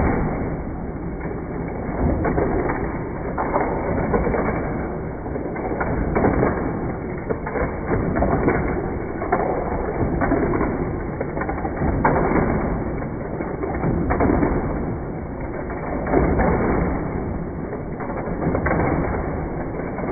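Hot Wheels loop track's battery-powered booster running, with die-cast cars rattling through it and around the plastic track. The whirring and rattling swell and dip about every two seconds.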